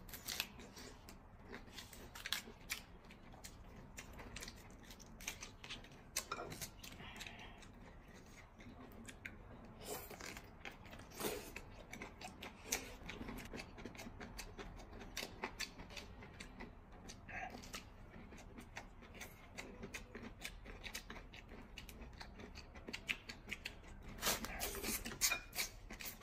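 Close-up eating sounds: lip smacks, chewing and scattered short crisp clicks as rice baked in bamboo tubes is bitten and the bamboo is peeled, thickest near the end.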